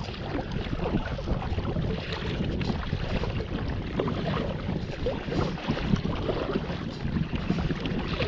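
Water splashing and lapping as a kayak is paddled across choppy sea, the paddle blades dipping in turn, with wind on the microphone.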